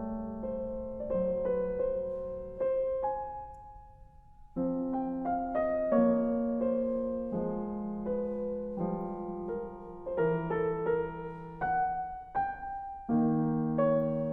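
Keyboard music: a gentle piano-toned melody of held notes and chords that change about once a second, briefly dropping out about four seconds in.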